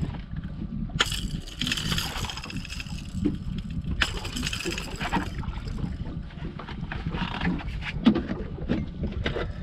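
Steady low rumble of wind and sea on an open boat, with sharp knocks or splashes about one second and four seconds in, and smaller ones later, while a small Spanish mackerel is brought to the side of the hull and gaffed aboard.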